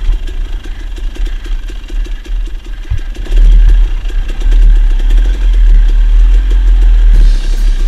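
KTM 300 two-stroke dirt bike engine running over rocky singletrack, at lower revs for the first three seconds, then louder under throttle from about three seconds in. A single knock comes just before the rise.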